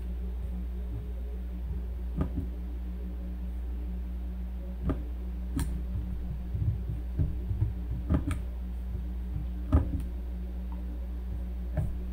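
Steady low electrical hum with scattered light clicks and taps, about seven in all, the sharpest about ten seconds in.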